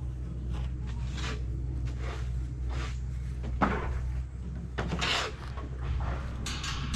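Scattered knocks, clatters and scrapes, the sharpest about three and a half seconds in, over a steady low hum.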